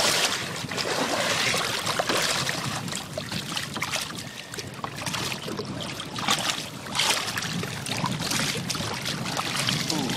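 Seawater splashing and sloshing against a boat's hull as a hooked tarpon is held alongside and released. There are irregular splashes throughout, loudest at the start and again about seven seconds in.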